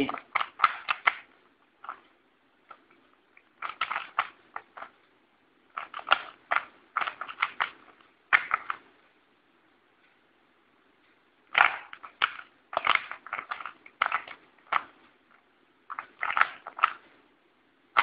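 Plastic 3x3 Rubik's cube being turned fast by hand: bursts of rapid clacking as the layers snap round, with short pauses between bursts.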